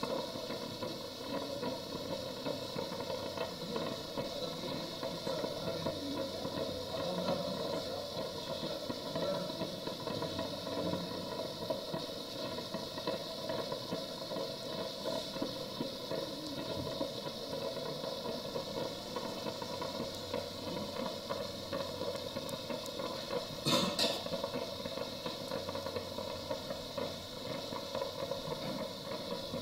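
Facial steamer running with a steady hiss, with one sharp click near the end.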